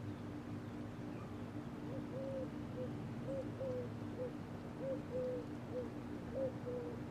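Sears Turn of the Century Deluxe ceiling fan (model 292.105402) running with a steady motor hum. From about two seconds in, a string of short, uneven chirps, roughly two a second, rises above the hum.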